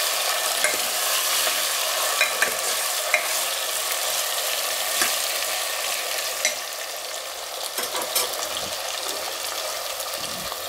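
Skin-on potato chunks sizzling in hot oil in a pressure cooker while a steel spoon stirs them, clinking against the pot now and then. The sizzle gets a little quieter about halfway through.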